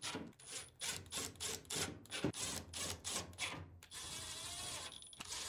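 Screws being driven into a dryer's sheet-metal front panel with a power driver: a run of short bursts, then a steady whir of a couple of seconds from about two-thirds of the way in.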